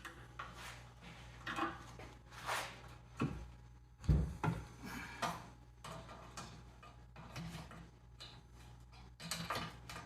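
A wrench working the square nuts off carriage bolts on an old engine's base plate: scattered metal clinks and knocks, with one heavier thump about four seconds in.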